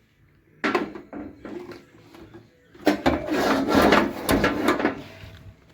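Hard objects being handled and set down: a series of clunks and knocks, then a louder, denser stretch of rattling and clattering about three seconds in.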